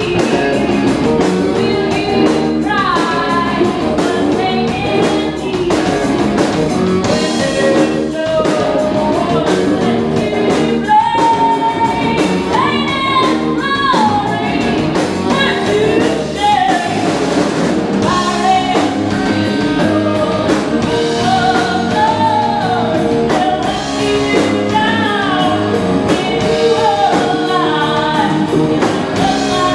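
Live rock band playing: a woman singing over electric guitar, bass guitar and drum kit.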